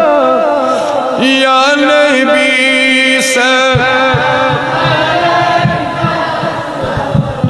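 A man chanting a devotional manqabat in long, drawn-out wavering notes through a microphone and loudspeaker. Low thumps and rumble join the chanting about halfway through.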